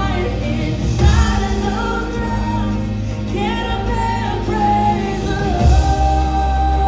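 Worship music with singing over a steady bass, with one long held sung note through the second half.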